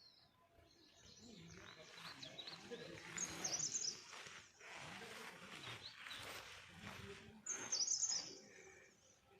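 Birds singing outdoors: high, warbling chirps, with two louder phrases, one about three seconds in and one near the end.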